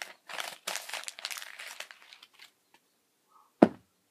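A sheet of paper being crumpled and crinkled in the hands, rustling for about the first two seconds, then a single sharp knock near the end.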